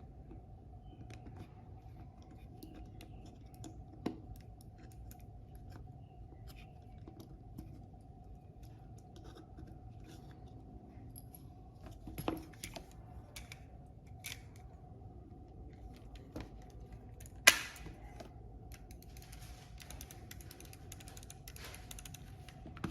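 Scattered light clicks and taps from handling a computer mouse and small parts on a workbench, with a few sharper knocks, the loudest about two-thirds of the way through, over a faint steady hum.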